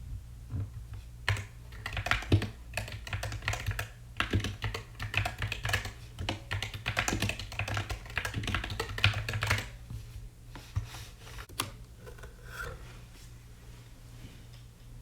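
Typing on an Epomaker Skyloong SK64 mechanical keyboard with Gateron optical black switches: a quick run of key clacks for most of the first ten seconds, thinning to a few single keystrokes before stopping.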